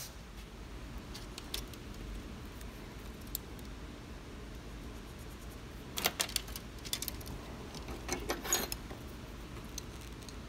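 Light metallic clinks and jingling of steel coil springs and needle-nose pliers being handled on a workbench, scattered at first, then in short clusters about six and eight seconds in.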